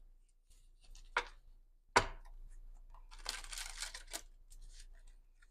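Tarot cards being handled: two sharp snaps about one and two seconds in, the second louder, then about a second of rustling cards.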